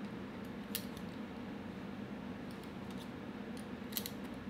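A few faint metallic clicks from an Allen key turning the screws on a PCP air rifle regulator's aluminium fill assembly, over a steady low hum.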